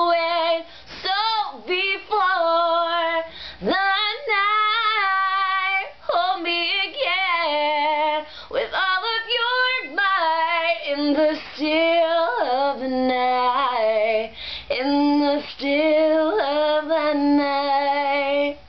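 A young woman singing solo a cappella, holding and bending notes in long wavering vocal runs with short breaths between them, and no accompaniment.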